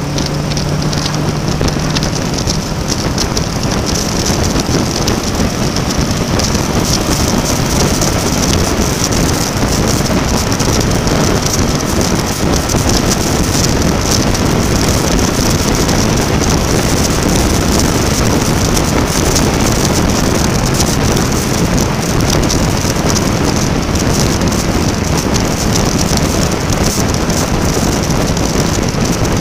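Steady wind rush over a helmet-mounted camera at road speed, with the Honda VFR800's engine hum heard under it for the first couple of seconds before the wind drowns it out.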